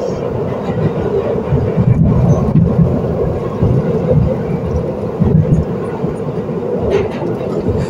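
New York City Subway 1 train car running on the track, heard from inside the car: a steady, loud rumble of wheels and running gear with a constant hum, and a couple of faint clicks.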